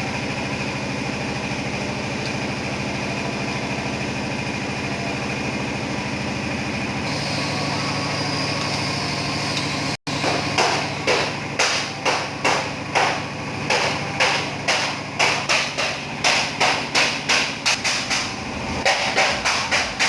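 A steady machine hum for about the first half; after a sudden cut, repeated hammer blows on the sheet steel of a Suzuki Carry's front door panel, about two to three a second, as a dent is beaten out.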